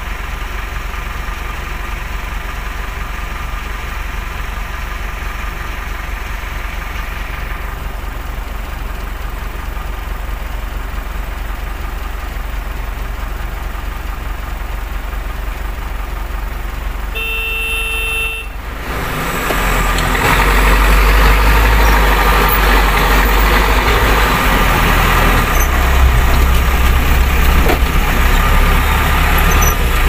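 Terex TLB 740S backhoe loader's diesel engine idling, heard from inside its cab, with a vehicle horn sounding briefly about 17 seconds in. About two seconds later the engine revs up and runs loud under load as the loader arm lifts the full bucket.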